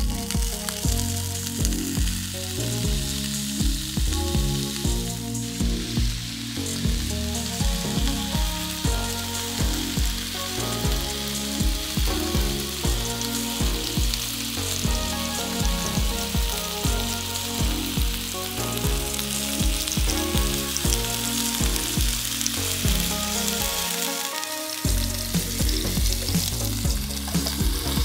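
Oiled vegetable slices sizzling on the hot plate of an electric contact grill, a steady crackling hiss, over background music with a regular beat that drops out briefly near the end.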